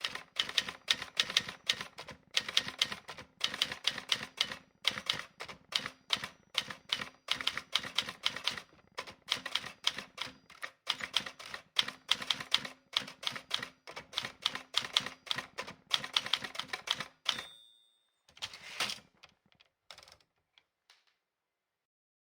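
Typing: rapid keystroke clicks in quick runs with short pauses between them. They stop about 17 seconds in, followed by a short ringing tone, a brief rushing sound and a few last clicks.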